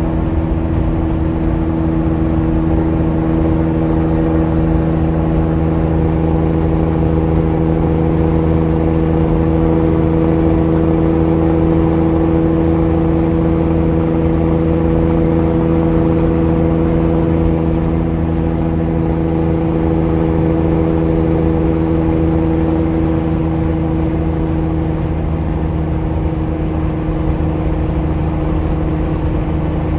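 Peterbilt semi truck's diesel engine droning at a steady pitch at highway cruise, with tyre and road noise.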